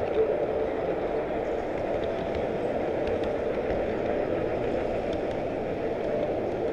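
Model train rolling along its track, heard from a camera riding on one of its cars: a steady rumble of wheels on rail with occasional faint clicks.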